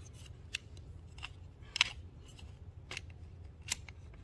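Plastic parts of an electric scooter's key switch clicking and tapping as its cover is handled and pushed onto the housing: a handful of sharp separate clicks, the loudest nearly two seconds in.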